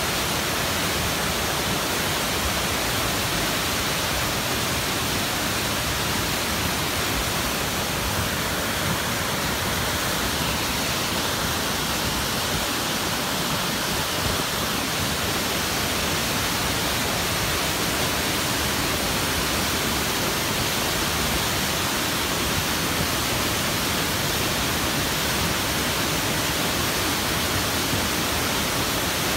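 Flash-flood debris flow of muddy water, mud and brush rushing down a rocky channel: a steady, loud rushing noise with no let-up.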